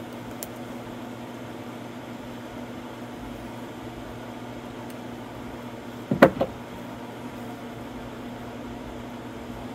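Hard plastic mower engine parts knocking together in a quick double knock about six seconds in, as the air filter housing is handled and fitted back on, over a steady low hum from an unseen machine.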